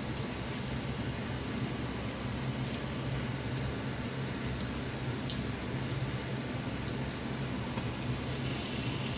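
Chicken breasts sizzling in hot oil and pan juices in a frying pan, a steady crackling hiss, with a few light clicks of metal tongs as the pieces are turned. A steady low hum runs underneath.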